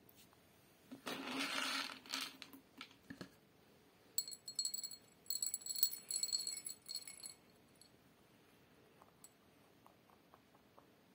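Dry rabbit pellets dropped by hand into a small glass bowl, clinking and rattling against the glass with a bright ringing tone from about four to seven seconds in, after a short rustling scrape about a second in. Faint small crunches follow near the end as the mini lop rabbit eats.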